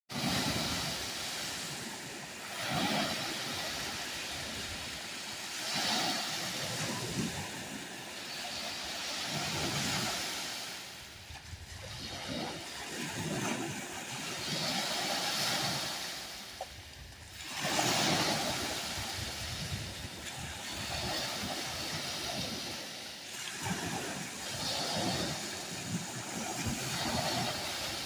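Small freshwater lake waves breaking and washing up on a sandy beach, the surf rising and falling every few seconds.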